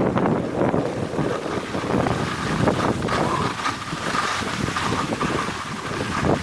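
Wind rushing and buffeting over the camera's microphone while skiing downhill, with the skis hissing over the packed snow.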